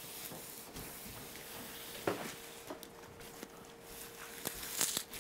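Light knocks and clicks of things being handled at a kitchen counter, the sharpest about two seconds in and just before the end, over a faint steady hum.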